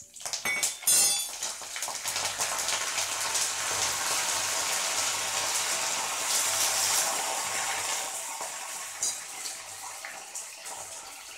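Fresh curry leaves spluttering and crackling as they hit hot sesame oil in a kadai with fried chana dal and dried red chillies, the tempering stage of a tamarind-rice paste. The sizzle starts suddenly, stays strong for several seconds, then slowly dies down near the end.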